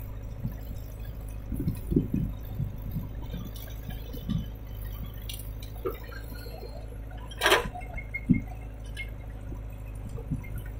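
JCB 3DX backhoe loader's diesel engine running steadily as the backhoe digs soil and dumps it into a tractor trolley, with scattered thuds and clunks and one loud sharp knock about seven and a half seconds in.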